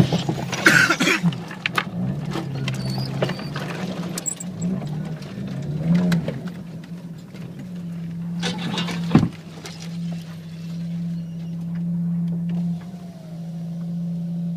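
Car engine running at low speed with its steady low hum, while the bodywork scrapes and knocks against things at the sides of a tight lane; a sharp knock comes about 9 seconds in.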